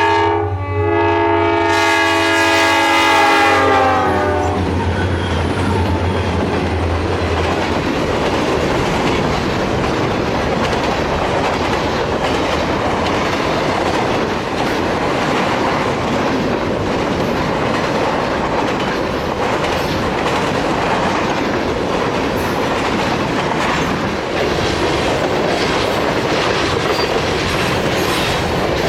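Freight train led by an EMD diesel locomotive. Its air horn sounds for about four seconds and drops in pitch as the locomotive passes. The engine drone fades a few seconds later, and the freight cars roll past with steady wheel clatter on the rails.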